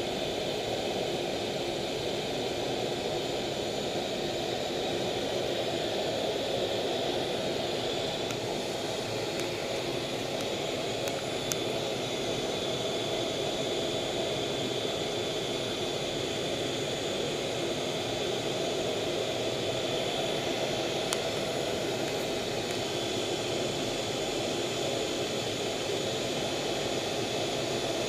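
F/A-18 jet engine noise heard from inside the cockpit in flight, running steadily without change.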